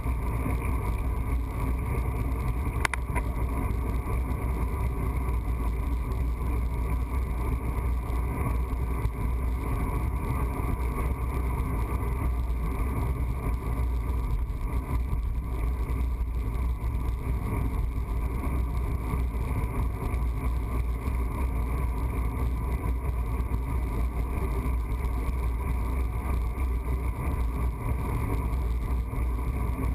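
Steady wind and road noise of a road bicycle rolling along pavement, heard on a handlebar-mounted camera: a constant low rumble with a steady hum higher up and no break. A faint tick comes about three seconds in.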